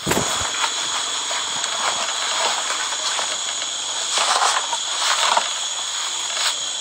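Cloth rustling and brushing directly against a phone's microphone as a garment is pulled over it, in irregular scratchy swishes, strongest right at the start and again about four to five seconds in. Under it runs a steady high hiss.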